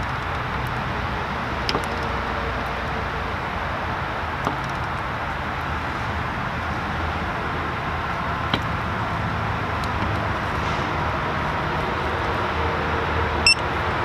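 A steady low rumble and hiss, with a few scattered light clicks from a ratchet wrench being worked on a bolt of the wheel hub assembly, and a short run of clicks near the end.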